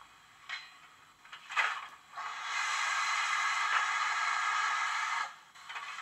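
Steam sound effects from a DCC sound decoder in a stationary OO-gauge Hornby Large Prairie 61XX model, played through its small onboard speaker. A couple of short hisses come first, then a steady hiss of escaping steam starts about two seconds in, lasts about three seconds and stops.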